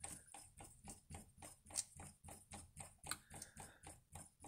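Faint, regular clicking, about four to five clicks a second, from the tuning mechanism of an Amator 2 Stereo receiver as its tuning knob is turned, sweeping the dial pointer and variable capacitor across the scale. A short, soft scrape joins in a little past three seconds.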